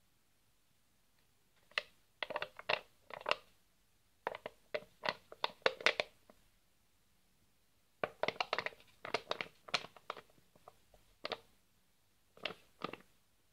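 A thin plastic cottage cheese tub crackling and clicking in the hands as it is turned to show its sides. The clicks come in irregular clusters, starting about two seconds in, with a short pause midway.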